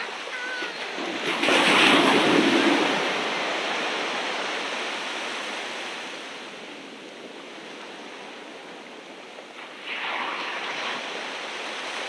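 Ocean surf on a beach: a wave breaks loudly about a second and a half in and slowly washes out, and a smaller wave breaks about ten seconds in.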